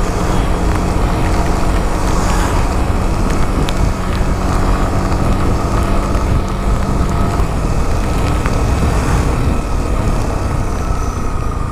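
Vehicle engine running under steady, loud road noise; a low engine hum drops away about seven and a half seconds in.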